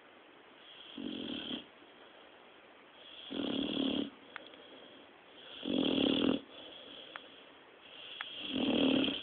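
Great Dane snoring in its sleep: four snores about two and a half seconds apart, each a little louder than the one before.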